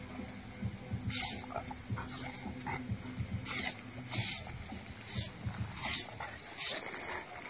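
Water jet from a garden hose sprinkler hissing, broken by repeated splattering bursts, roughly one a second and irregular, as a Rottweiler bites and laps into the spray.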